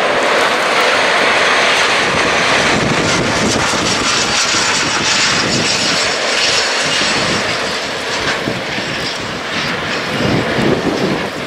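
A train rolling past: a steady rushing noise of a locomotive and its wagons running on the rails, with gusts of wind buffeting the microphone near the end.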